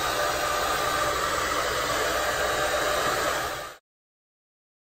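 Handheld hair dryer blowing steadily, cutting off suddenly near the end.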